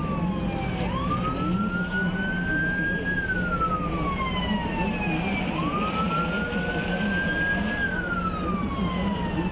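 Wailing siren sweeping slowly up and down twice, each rise and fall taking about four and a half seconds, over a steady low drone.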